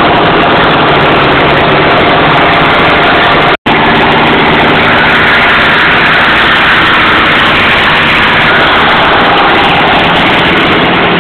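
Fiatagri 90-90 tractor's diesel engine running steadily under load while pulling a plough, with a brief cut in the sound about three and a half seconds in.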